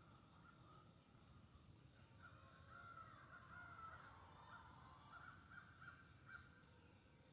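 Near silence with faint bird calls, a run of wavering calls from about two seconds in and short repeated ones toward the end.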